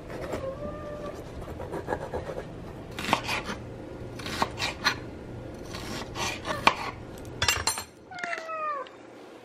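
Kitchen knife slicing a yellow bell pepper on a cutting board, in several clusters of crisp cuts. A sphynx cat gives a short meow near the start and a longer meow falling in pitch near the end.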